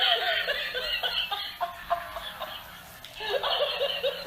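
Laughing toy playing a recorded cackling laugh in quick repeated bursts, thin, with no low end. It dies down about two seconds in and starts up again near the end.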